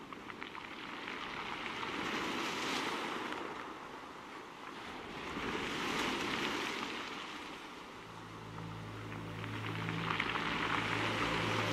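Rushing underwater water noise that swells and fades about every three to four seconds. From about two-thirds of the way through, a low steady hum of several tones joins in.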